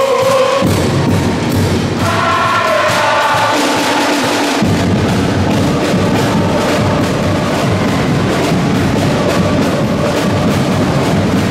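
Drums beating a steady rhythm, with voices singing a chant over them for the first few seconds.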